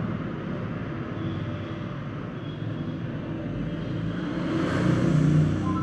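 Steady vehicle rumble with hiss, growing louder about four to five seconds in, with a couple of short steady tones near the end.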